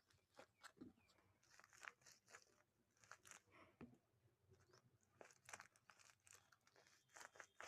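Faint crinkling and crackling of plastic blind-bag packaging being handled, a quick irregular run of small crackles.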